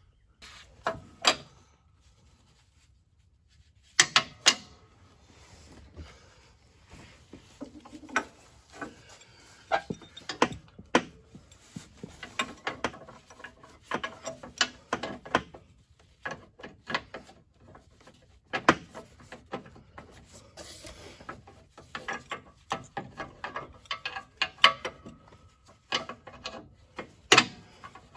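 Irregular clicks, knocks and rubbing of hand tools and parts being handled while a riding-mower deck is worked on, with a short quiet pause about two seconds in.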